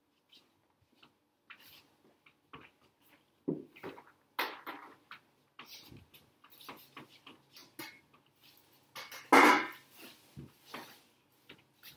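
Shoes shuffling and scuffing on a concrete floor with scattered light knocks and clicks, as a person shifts his feet to keep a stick balanced on his hand. There is a louder short rasping sound about nine and a half seconds in.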